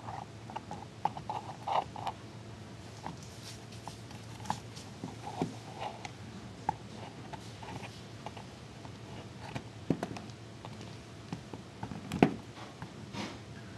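Miniature model huts being handled and set down: scattered light taps, clicks and knocks, the loudest about twelve seconds in, over a steady low hum.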